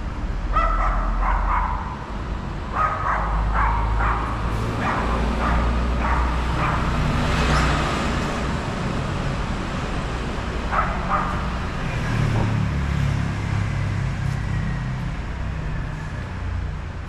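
City street ambience: traffic rumbles steadily and a vehicle passes about halfway through. A dog barks in short bouts near the start and again later.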